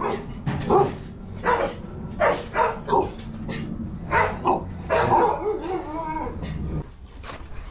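A dog barking over and over in short, quick barks, which ease off about seven seconds in.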